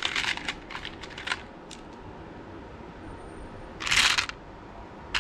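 Resin beads clicking and rattling against one another as a hand digs through a plastic basket of them: a run of small clicks in the first second or so, then a louder rattle about four seconds in.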